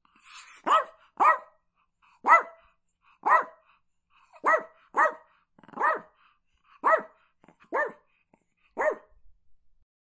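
Chihuahua barking: about ten short barks, roughly one a second, a few coming in quick pairs.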